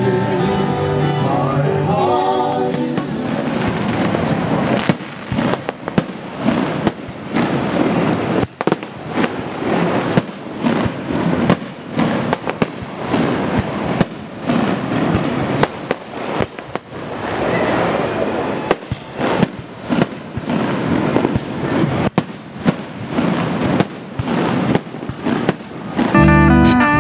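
Fireworks display going off: a rapid, irregular run of bangs and crackles over a continuous rumble. Music fades out in the first few seconds, and slide-guitar music starts near the end.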